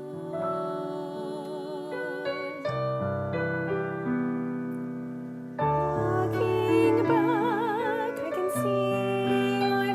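Slow, gentle piano music in hymn style, with held chords that change every second or two under a wavering melody line; it grows louder a little past halfway.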